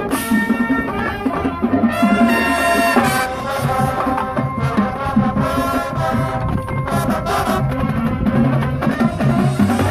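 Marching band brass and percussion playing: sustained brass chords over a pulsing drum line, with a brighter, louder brass entry about two seconds in.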